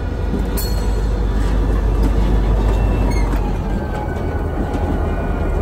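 EMD SD40-2 diesel locomotive, its 16-cylinder 645 engine running with a heavy low rumble as it rolls slowly past close by, loudest a couple of seconds in. A sharp metallic clank sounds about half a second in, and a brief high squeal comes near the middle.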